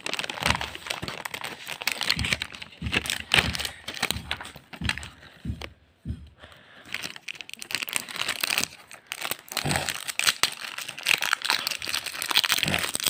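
Foil Pokémon booster pack wrappers crinkling irregularly as they are handled, with a brief lull about six seconds in.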